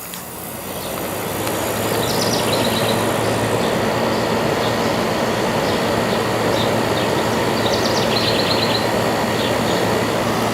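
Hampton Bay 5,100 BTU window air conditioner's compressor starting up with the fan on high: the sound builds over the first two seconds into a steady hum under the rush of air, running smooth.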